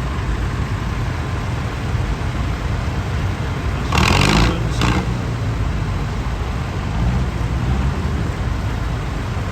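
Vintage tractor engines running as the tractors drive past, a steady low rumble. A loud rushing noise comes twice about four and five seconds in, and an engine's pitch rises and falls after it.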